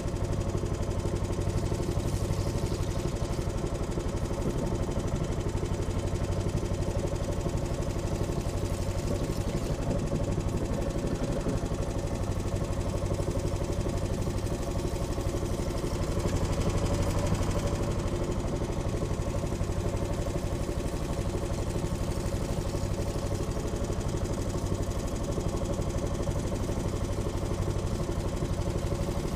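A small wooden fishing boat's engine running steadily at an even speed, a constant low hum with no change in pitch as the boat cruises.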